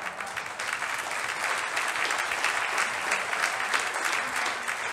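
Audience applauding: dense clapping that builds up over the first second or two and then holds steady.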